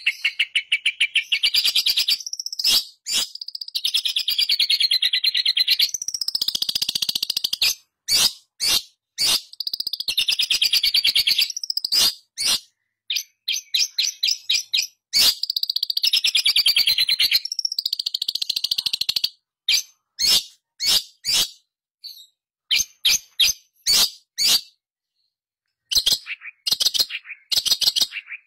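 Long-tailed shrike singing: rapid, harsh trilled phrases of about two seconds each, broken up by quick runs of short, sharp notes, then only scattered short notes over the last ten seconds.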